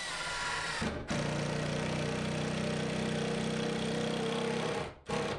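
Cordless drill driving a 2 1/4 inch screw through a particleboard cabinet cleat and drywall into a wood stud. The motor runs softly for about a second, then runs steadily at full speed for nearly four seconds and stops as the screw sinks flush.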